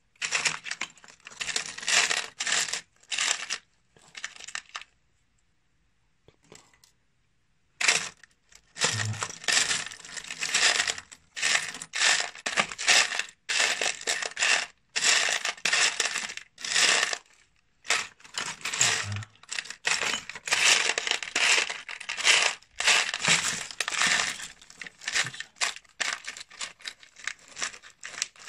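Loose steel screws, bolts and small electronic parts clinking and rattling against each other as a hand sifts through them in a plastic tub, in repeated bursts. A few seconds in, the rattling stops for about three seconds, then resumes.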